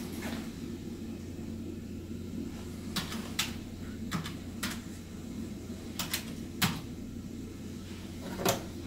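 Scattered single clicks of keys being pressed on a computer keyboard, a few at a time with pauses between, over a steady low hum. The loudest click comes near the end, as buttons on a desk phone's keypad are pressed.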